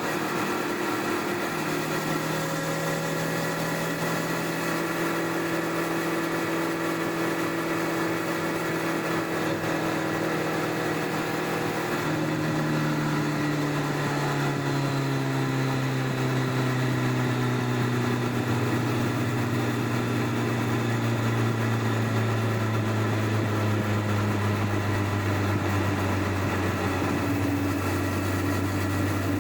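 Stock-exhaust Honda CBR1100XX Blackbird's inline-four engine running under way, heard from under the rear seat. Its pitch holds fairly steady, rises a little about twelve seconds in, then falls slowly as the bike eases off and slows.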